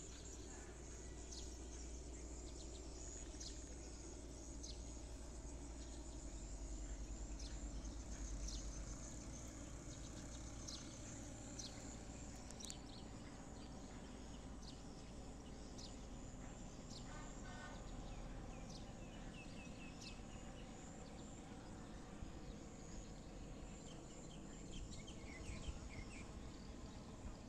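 Distant helicopter's low rotor rumble, swelling and pulsing about eight seconds in, with small birds chirping over it.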